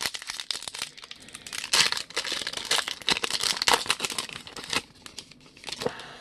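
Foil wrapper of a baseball card pack being torn open and crumpled by hand: a dense crackling crinkle that thins out in the last second or so.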